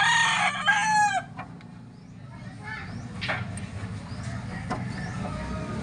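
A rooster crowing once, a pitched call that falls away at the end, about a second long at the start. After it there is only a low steady hum and a few faint clicks.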